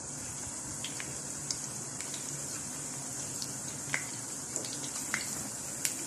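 Mung dal pakoras deep-frying in hot oil over medium-low heat: a steady sizzle with scattered small pops and crackles.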